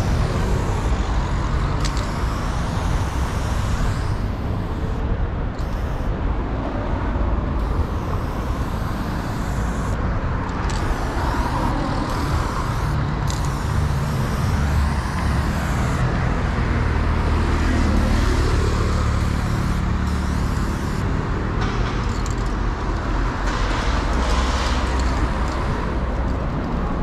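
Steady city traffic rumble with a spray paint can hissing over it in bursts, stopping and starting several times as a throwup is painted.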